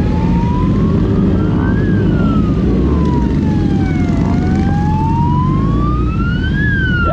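Police siren wailing, slowly rising and falling in pitch, with high points about two seconds in and near the end. Under it is a loud, steady low rumble.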